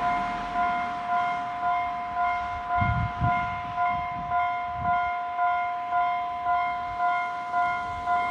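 Japanese level-crossing warning bell ringing in a steady rhythm of just under two strikes a second, with an altered, off-normal tone. A few low thumps come about three to five seconds in.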